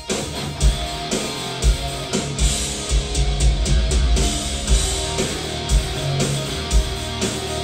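Rock music with guitar and drums, a heavy kick drum thudding at a steady beat over full bass, played back through a pair of Dynaudio Confidence C1 stand-mount loudspeakers in a room.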